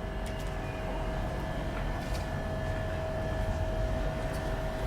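Steady mechanical hum: a constant low rumble with a steady tone over it and a few faint ticks.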